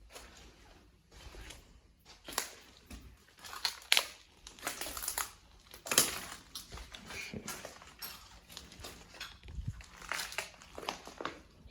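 Footsteps crunching over debris on the floor, an irregular run of sharp crunches and crackles.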